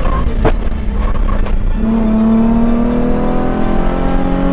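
Nissan 350Z's V6 engine under way, with tyres rushing over dirt and a couple of sharp knocks as the car runs off the edge of the track. After about two seconds the engine pitch climbs steadily as it accelerates.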